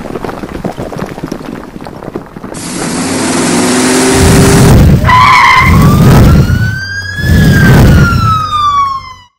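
Logo-sting sound effects: a rushing whoosh builds up, then three deep booms, while a police siren wails up in pitch and back down once before cutting off suddenly.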